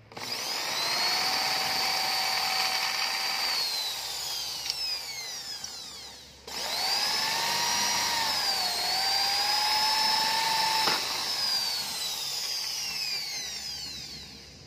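Electric drill with a keyed chuck boring a rivet hole through a stainless steel patch on a bicycle head tube, in two runs. Each time the motor whines up to a steady pitch and winds down when released, with a short pause about six seconds in and a brief dip in pitch partway through the second run as the bit bites.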